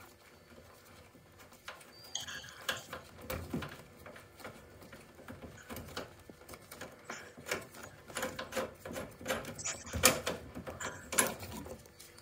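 Nut on the gas pipe above a combi boiler's gas isolation valve being worked loose by hand and tool: a run of irregular metallic clicks and knocks against the brass fitting and pipework, loudest about ten seconds in.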